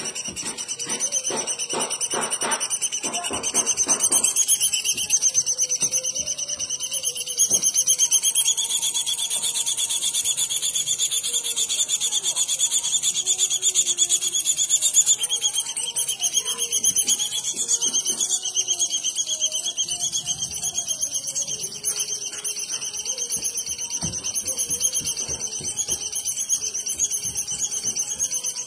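A bird's continuous high-pitched trill, pulsing rapidly and unbroken, with faint lower wavering calls or voices underneath.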